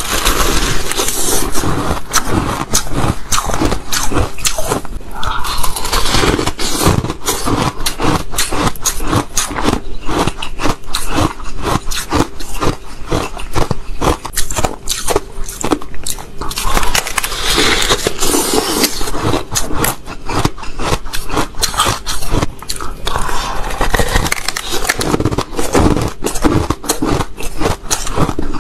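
Close-miked biting and chewing of compacted shaved-ice chunks: a rapid, continuous run of crisp crunches and crackles.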